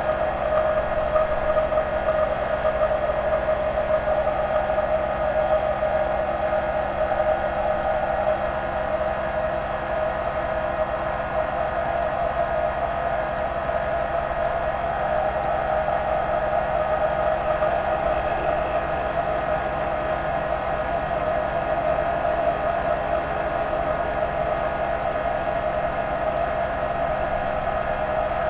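CNC-converted lathe running steadily while turning a plastic bar, with a constant whine from its drive motors and spindle as the tool takes the cut.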